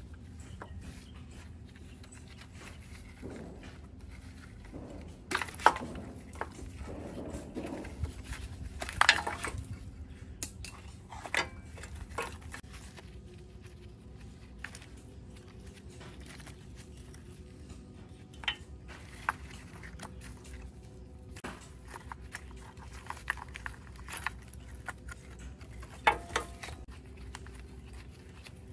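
Metal tools and parts clinking and knocking by hand, in scattered sharp strikes with the loudest a few seconds apart, over a low steady hum.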